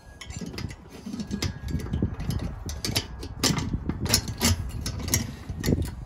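Irregular metal clinks and knocks from handling a Weber kettle's lid and hinge against the bowl while checking the hinge position.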